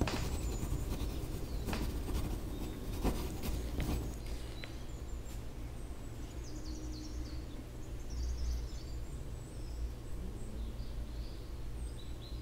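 Background ambience: a steady low rumble, a few sharp clicks in the first four seconds, then faint bird chirps repeating through the rest.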